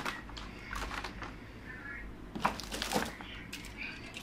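Plastic toy vehicles being handled and moved between boxes: scattered light clicks, knocks and rattles, with a louder cluster about two and a half to three seconds in.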